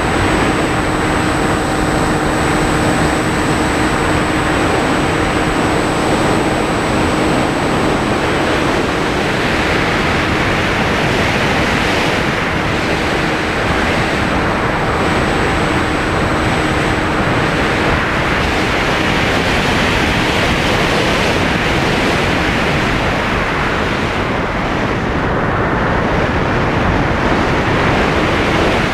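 Loud steady rush of air over the microphone of a camera riding on a giant-scale RC airplane in flight. Faint steady engine tones sit under it and fade out a little past halfway.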